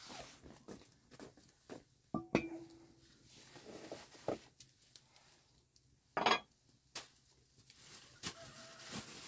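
Scattered clinks and knocks of kitchenware being handled, one of them ringing briefly about two seconds in.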